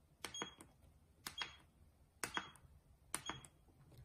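Button presses on a handheld dental X-ray unit's membrane keypad: about six short clicks, each sounding with a brief high beep, while settings are stepped through.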